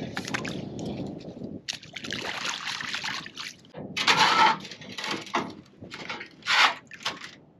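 Water sloshing and splashing in irregular bursts, as in a wet, water-filled field ditch.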